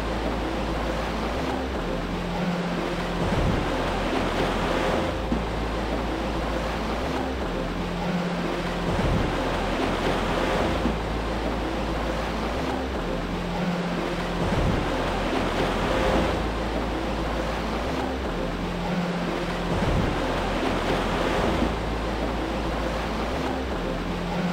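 Steady rushing water noise that swells about every five to six seconds, over low sustained music chords.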